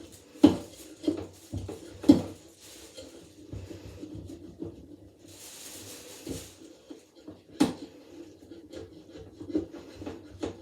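Bathroom ventilation fan parts being handled and scrubbed clean: rubbing and scraping, with three sharp knocks about half a second, two seconds and seven and a half seconds in.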